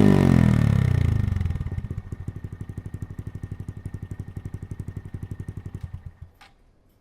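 Honda Monkey 125's single-cylinder four-stroke engine through a Yoshimura GP-Magnum full exhaust system. The revs fall back from a blip over the first two seconds and settle into an even, pulsing idle. The engine is switched off about six seconds in, with a brief click just after.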